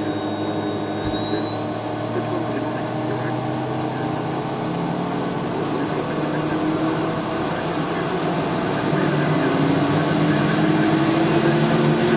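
Piper Meridian's PT6A turboprop being spun on its starter, with a high whine rising steadily in pitch as the engine spools up. A lower hum climbs and grows louder about nine seconds in. The engine is being dry-motored to bring a hot ITT down after a quick turn.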